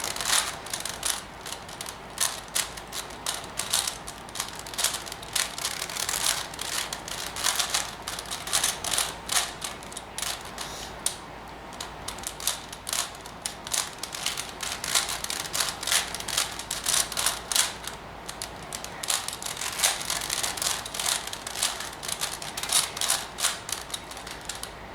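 A plastic 4x4 Rubik's Revenge cube being turned by hand: fast, irregular clicking and clacking as its layers snap round, with short pauses between bursts of turns.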